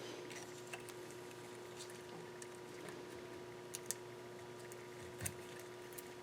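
Light scattered clicks and faint scraping from a hand tool working on the deck surface of a KA24DE engine during cleaning, with a steady hum underneath.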